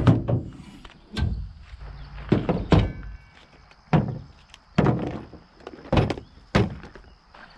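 About nine irregular hollow thunks and knocks as tools, including a cordless drill, are picked up and set down on the lined tailgate of a Toyota pickup.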